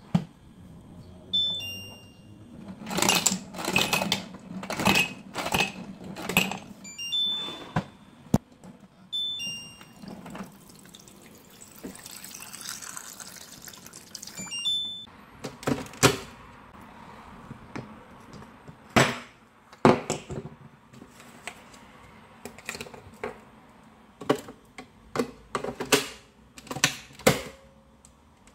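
Water purifier dispenser beeping at its button presses, then water running steadily from its spout into a mug for about four seconds midway, ending with another beep. Before and after, a series of sharp clicks and knocks as the mug and machine buttons are handled.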